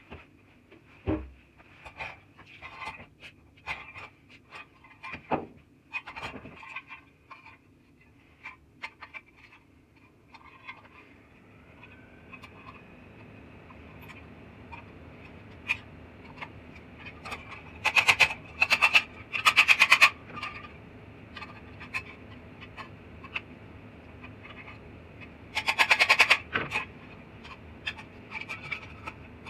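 Workshop sounds: small hard parts clicking and knocking. Then a steady machine hum sets in, broken twice by loud, rapid rasping bursts, the first lasting about two seconds and the second about one.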